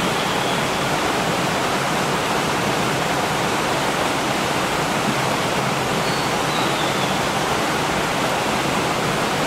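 Steady rushing of flowing water, an even unbroken noise at a constant level.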